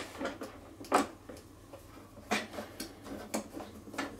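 A hand screwdriver drives star screws into a Karcher pressure washer's plastic housing, giving about five sharp clicks and knocks, roughly one a second.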